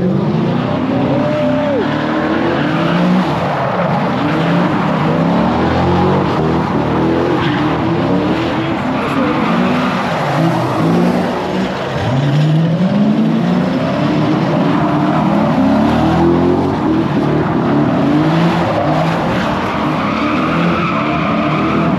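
A car sliding on smoking tires, its engine revving up again and again every two to three seconds, with tires skidding throughout.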